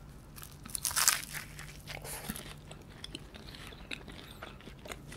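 A bite into a beef Wellington's puff pastry crust, crunching loudest about a second in, followed by chewing with small crackles of pastry.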